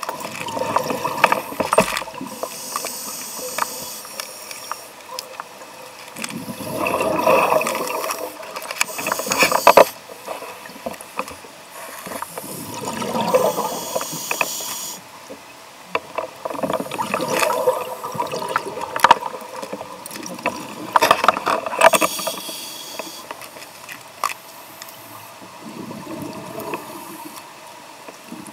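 Scuba regulator breathing heard underwater through a sealed camera housing: a hiss on each inhalation, then a bubbly, crackling gush of exhaled air. Several breaths in a slow, even cycle.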